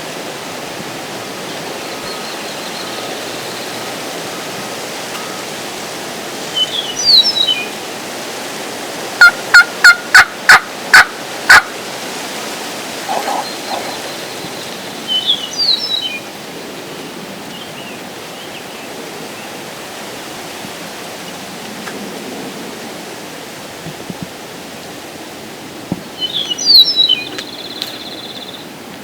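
Wild turkey gobbler gobbling three times, the last near the end the loudest, over steady wind. About nine seconds in, a run of seven loud, evenly spaced yelps from a hunter's turkey call.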